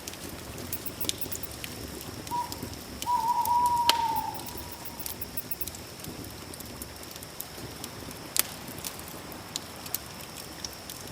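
Campfire crackling with scattered sharp pops over a steady high drone, and one drawn-out animal call about two seconds long, falling slightly at its end, a few seconds in.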